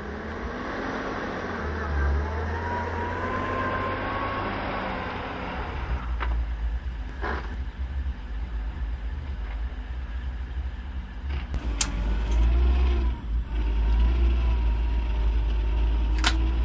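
Motor vehicle engine running under way, a steady low rumble with a whine that rises in pitch a couple of seconds in. A few short knocks or rattles sound over it.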